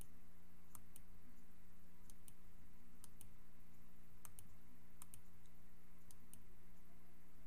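Computer mouse button clicked about six times, a second or so apart, each a quick double tick of press and release. A steady low electrical hum runs underneath.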